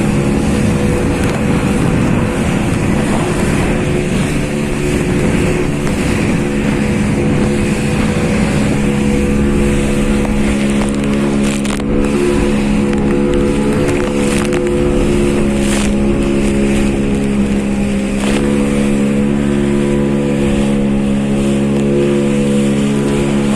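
Boat engine running steadily at a constant speed, with a slight change in its pitch about eighteen seconds in, and wind buffeting the microphone.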